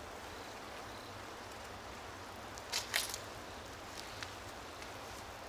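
A Sanshu Kako 'Hi-Story' senko hanabi (Japanese incense-stick sparkler) burning, its glowing bead giving off a couple of sharp spark crackles about three seconds in and two small ticks a second later, against a faint steady hiss.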